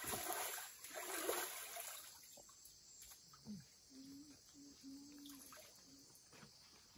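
Water splashing and sloshing as hands work in a shallow muddy stream, rinsing crushed barbasco root. The splashing dies down about two seconds in, leaving only faint trickling and small splashes.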